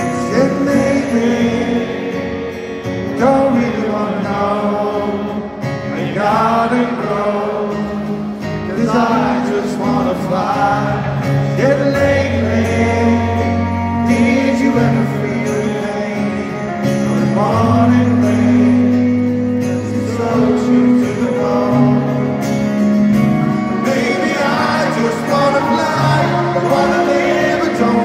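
Live rock band playing with a male lead vocal, heard from the audience seats of a large arena.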